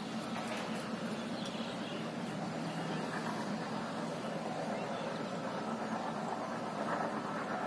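A steady low engine drone from a vehicle out of sight, with a few steady tones in the hum.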